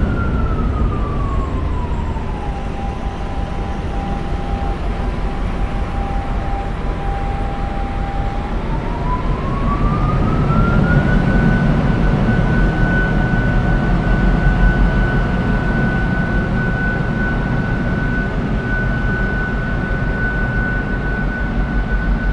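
M62BF diesel locomotive's engine running with a rough, steady beat. A high whine over it slides down to about half its pitch in the first couple of seconds, holds, then climbs back up after about eight seconds as the engine note swells, and stays high.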